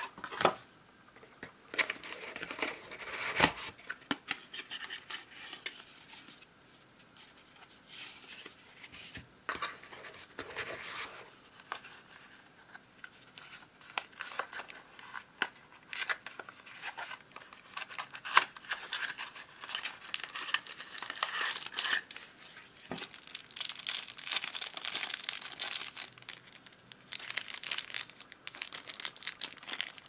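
Cardboard boxes and a plastic bag being handled and opened: irregular crinkling, rustling and tearing with small taps and clicks, coming in bursts.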